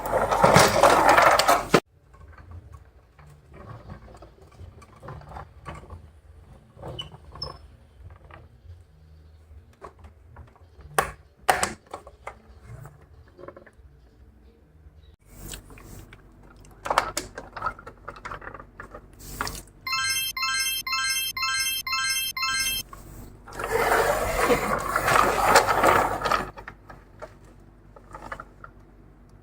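Clicks and light knocks of small die-cast toy cars and their boxes being handled, with two loud rustling bursts and, about two-thirds of the way through, a few seconds of quick, evenly repeating electronic beeps.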